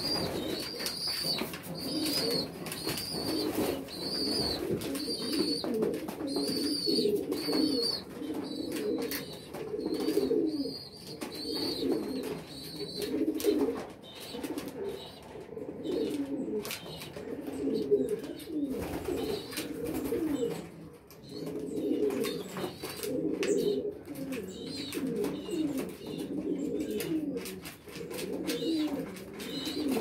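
A loft of domestic pigeons cooing, with low coos repeating all the way through. A high, thin peep repeats about every second over the first dozen seconds and then fades, and short sharp clicks of pecking at the seed feeder come in between.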